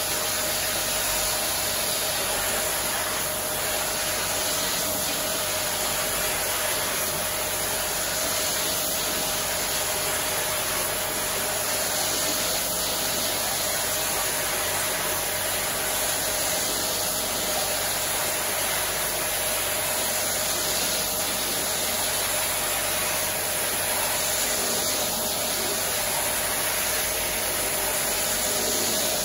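Pressure washer spraying a high-pressure water jet into a thick shag rug: a steady hiss of spray, with an even hum underneath.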